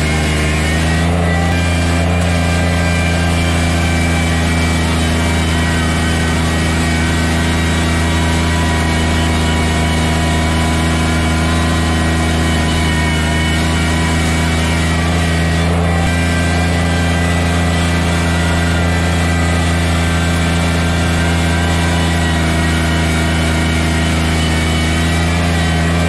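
Kubota BX sub-compact tractor's three-cylinder diesel engine running steadily under load while its front loader pushes snow. The engine speed picks up slightly about a second in.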